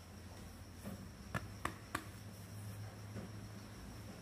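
Three light, sharp clicks about a third of a second apart, a little past the first second, from small plastic toy pieces being handled, over a steady low hum.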